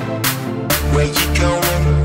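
Background music: a hip hop song with a steady beat, a deep bass line coming in under the drums a little under a second in.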